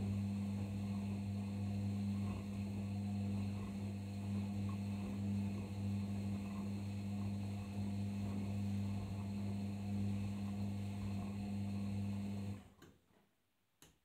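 Arçelik 5083 washing machine's drain pump running with a steady mains hum. It cuts off abruptly about twelve and a half seconds in, and a single click follows near the end.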